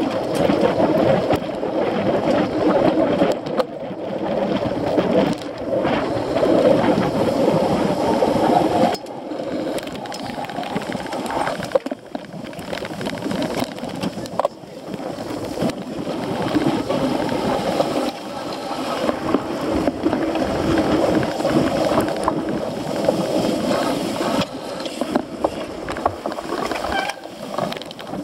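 Cyclocross bike ridden hard over rough ground, heard from a camera mounted on the bike or rider: a steady rough rumble of tyres and rattling frame mixed with wind buffeting the microphone, with a few knocks from bumps.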